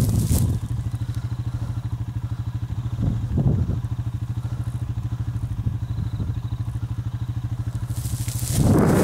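Vehicle engine running steadily at a low, even speed, with a rush of noise near the end.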